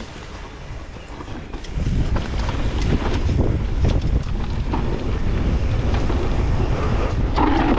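Wind buffeting the camera microphone of a downhill mountain bike descending the course, with frequent knocks and rattles from the bike over the rough trail. It gets much louder about two seconds in as speed builds.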